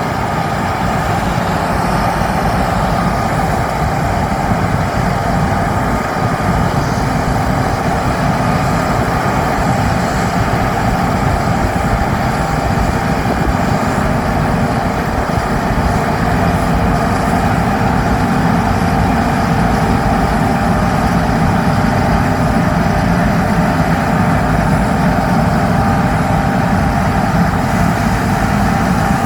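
Large diesel farm machinery running steadily under load: a continuous engine drone with a faint steady whine, typical of a combine harvester working through wheat.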